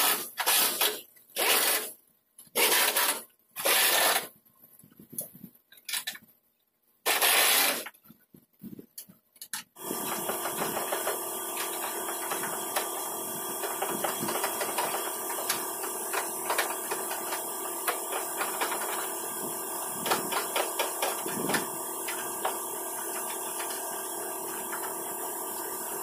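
Pneumatic impact wrench firing in a series of short bursts, about nine in ten seconds, working fasteners on a removed truck bumper. About ten seconds in, a steady machine hum with hiss starts suddenly and carries on, with light ticks over it.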